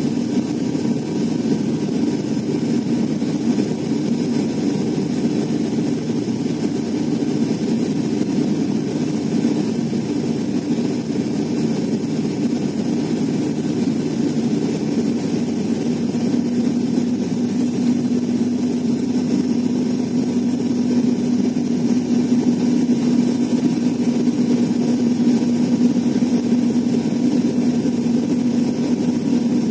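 Cabin drone of an ATR 72's turboprop engine and six-blade propeller on the descent to landing, a loud, steady low hum. About halfway through, a steady humming tone within it grows stronger.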